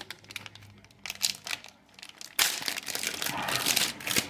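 Wax paper wrapper of a 1992 Topps baseball card pack crinkling and tearing as the pack is opened: a few short rustles, then a longer, louder stretch of crinkling from about halfway in.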